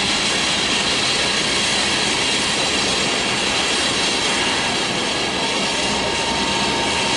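Airbus A320's twin jet engines at takeoff thrust during the takeoff roll: a steady roar with a high whine.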